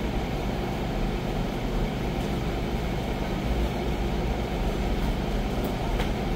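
Steady rushing air and low rumble of large wall-mounted gym fans running, with a light smack of a shin-guarded kick landing about six seconds in.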